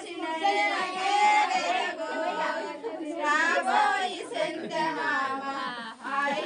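Several women's voices overlapping, partly singing and partly talking, during a baby-shower ritual.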